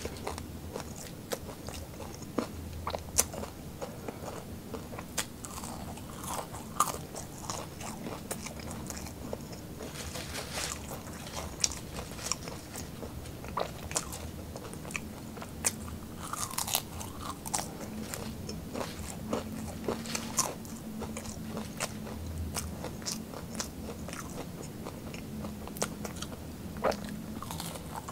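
Close-miked crunching and chewing of seasoned french fries, a quick run of irregular bites and mouth clicks.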